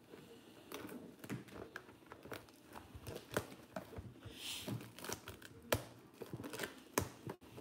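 Clear plastic shrink-wrap on a trading-card box crinkling and tearing as hands strip it off, with irregular crackles and a few sharper clicks.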